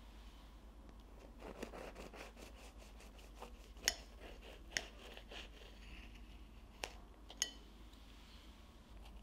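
Knife cutting through a baked choux-pastry zeppola: the crisp crust crackles in a quick run of small crunches, then the blade clicks sharply against the porcelain plate four times.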